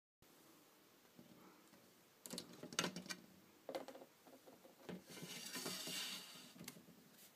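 A few sharp knocks and clatters, then a rasping scrape lasting about a second and a half, from a hand working at the front of a glass reptile terrarium.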